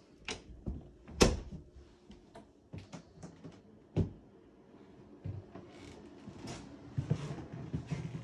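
A closet door being shut, with one sharp knock about a second in, among scattered lighter clicks and knocks.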